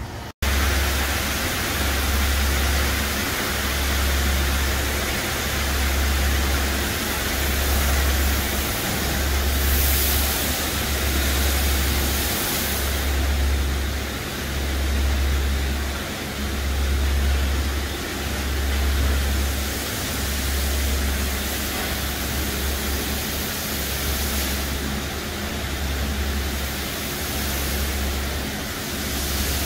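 Brush gantry truck wash running on a tractor-trailer: a steady hiss of spraying water and machinery over a low throb that swells and fades every two seconds or so.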